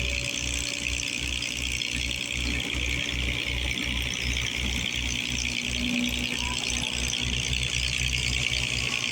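Running machinery: a steady high-pitched squeal over a low, uneven throbbing rumble.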